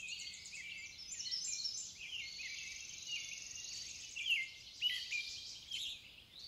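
Several songbirds singing over one another, with many quick chirps and slurred notes and a fast trill.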